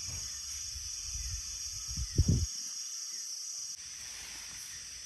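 Steady, high-pitched chorus of forest insects, with a few low dull thumps about two seconds in.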